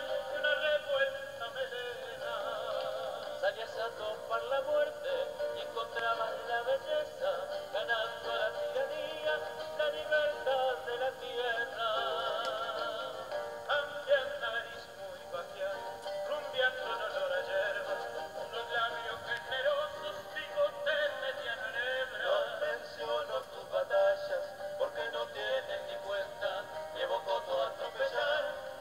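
Several men singing a song together with vibrato, accompanied by acoustic guitars. The sound is thin, with almost no bass, like an old recording.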